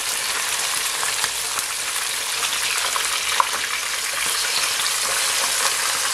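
Whole fish deep-frying in hot vegetable oil: a steady, loud sizzle with scattered small pops and crackles.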